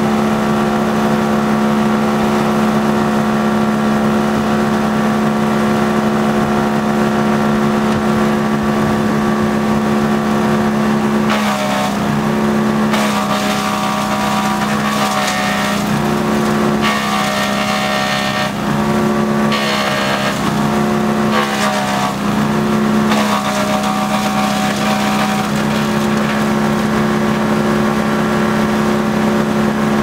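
Zakandra drum wood chipper's Vanguard petrol engine rising to a steady high running speed. From about a third of the way in to about three quarters, branches are fed and chipped: the engine pitch dips again and again under load, with bursts of crackling chipping noise, before it settles back to a steady run.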